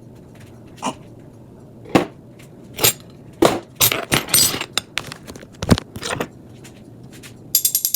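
Dishes and cutlery knocking and clinking against each other as a dishwasher is unloaded: a series of separate short knocks and clinks, busiest around the middle, with one heavier thump a little later.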